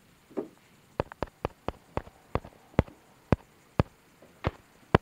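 A string of sharp taps or clicks, quick at first and then about two a second, starting about a second in, after one duller knock.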